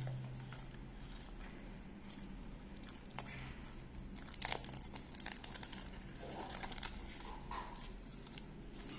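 Faint crinkling and rustling of thin protective plastic being peeled off a new wristwatch, with a few small clicks, over a low steady hum.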